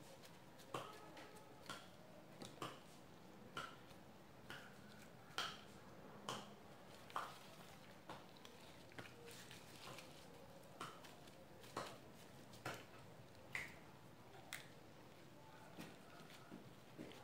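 Faint, sharp clicks at a steady pace of about one a second, some with a short ping, over near silence.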